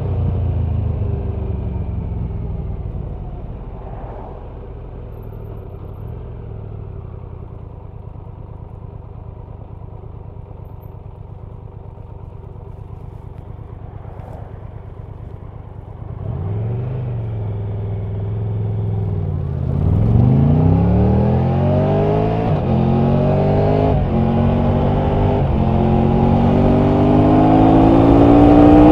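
Triumph Tiger 1200 three-cylinder engine and exhaust, heard from the rider's seat. It winds down and idles low and steady for about ten seconds, then pulls away and accelerates hard, the pitch rising again and again as it upshifts through the gears.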